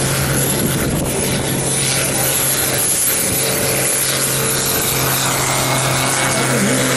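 Deutz-Fahr X710 tractor's diesel engine running hard under full load while it drags a tractor-pulling sled, its pitch held steady throughout.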